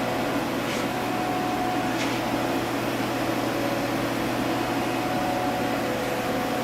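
Steady mechanical hum of fans and running equipment, with a few constant tones over an even whir and a couple of faint ticks in the first two seconds.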